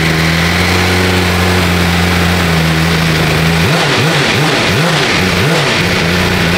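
BMW M1000RR inline-four engine idling just after starting, its first run since the fuel pump was reconnected. A few seconds in, the throttle is blipped several times in quick succession, each rev rising and falling, before it settles back to a steady idle.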